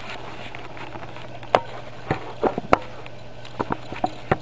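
Camera handling noise as it is set down and propped in place: a string of sharp, irregular knocks and clicks starting about a second and a half in, over a steady low hum.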